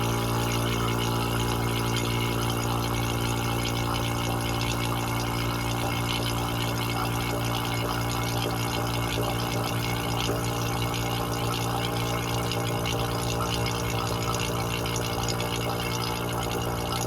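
Refrigeration vacuum pump running steadily, evacuating a mini-split's refrigerant lines: a constant motor hum with a hissing rush over it.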